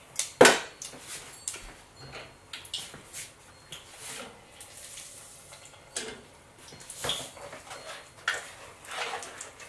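Scattered clinks and knocks of a utensil against a mixing bowl as tempura batter is stirred, with one sharp click about half a second in.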